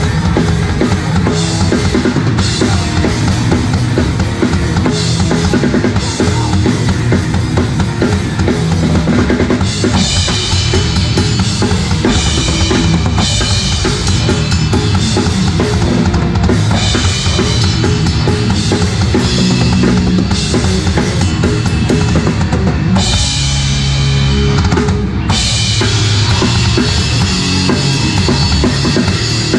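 Live hardcore punk band playing loud and fast, heard from right beside the drum kit: rapid bass drum, snare and cymbal playing over the rest of the band, with the cymbal wash thinning and returning from one section to the next.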